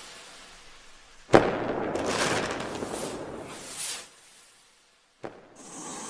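Intro sound effects: a sharp bang about a second in, followed by rushing whooshes that swell and fade, then a second sharp hit near the end.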